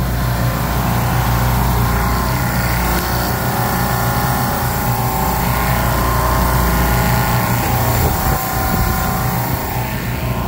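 Bitzer semi-hermetic reciprocating compressors on a Hill Phoenix refrigeration rack running: a steady, loud mechanical drone with a constant low hum. It includes the newly installed compressor, running on its own and pulling suction pressure down.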